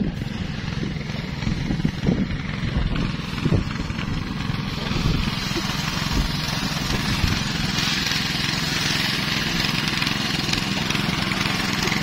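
Small engine-driven rice thresher running steadily under load, a dense low engine drone with a brighter rushing hiss added from about eight seconds in while rice bundles are fed into it.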